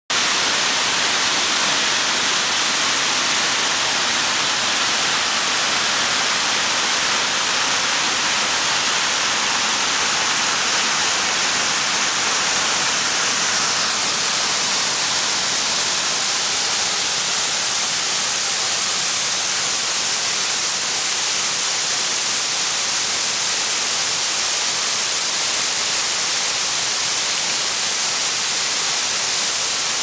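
Water rushing over rock slabs and down a stepped waterfall: a steady rushing hiss.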